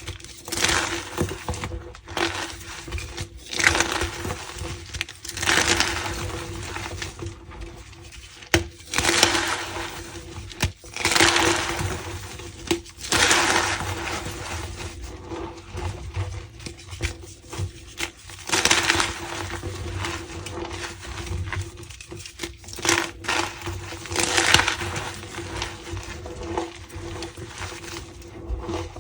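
Reformed gym chalk being crushed: a run of squeaky crunches, each about a second long, coming every couple of seconds.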